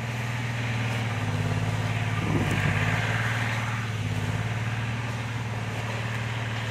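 A motor engine running steadily, a low even hum that slowly grows louder, with a faint rustle of dry bamboo leaves underfoot in the middle.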